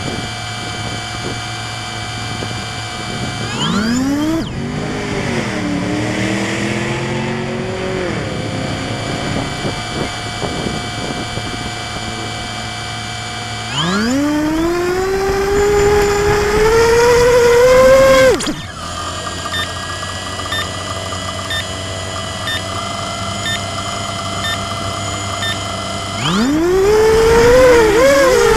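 ImmersionRC Vortex quadcopter's electric motors and propellers whining. The pitch rises steeply three times as the throttle is raised, about 4, 14 and 26 seconds in, with a steadier hum in between. The second spool-up holds high for a few seconds and then cuts off abruptly.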